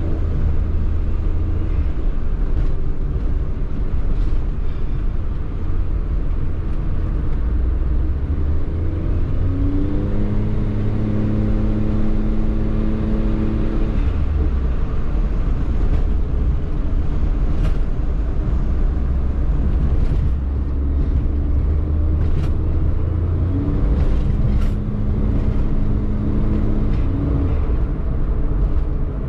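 Car engine running with a steady low rumble; twice the revs rise and hold for a few seconds before dropping back.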